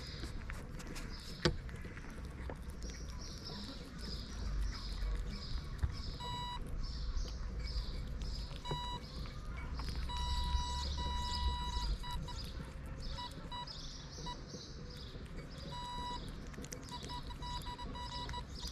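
Kittens chewing and lapping wet cat food from a dish right beside the microphone, a soft smacking repeated two to three times a second. From about six seconds in, a steady high beep sounds on and off.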